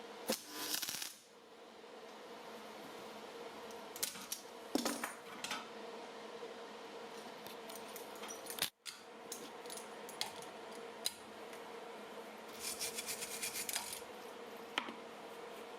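Scattered clinks and knocks of small metal parts being handled, with a quick rattle of metallic ticks near the end, over a steady hum.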